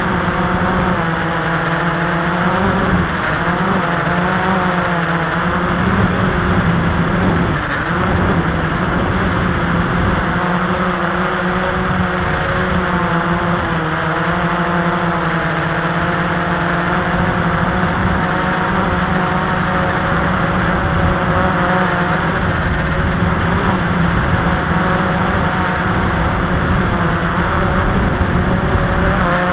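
Multirotor drone's motors and propellers running, a steady hum made of several pitches that waver slightly as the motor speeds adjust, over a constant rushing hiss.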